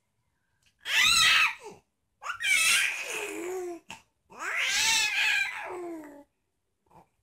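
Baby making three drawn-out, high squealing vocal noises in a row, each falling in pitch toward its end.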